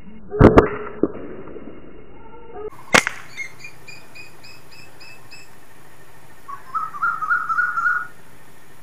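Slingshot being shot: sharp cracks of the rubber bands snapping on release, popping like a firecracker, two close together right at the start and another about three seconds in. Birds chirp in between.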